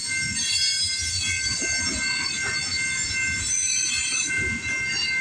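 Freight train cars rolling through a level crossing: steady high-pitched wheel squeal over a low, uneven rumble of wheels on the rails.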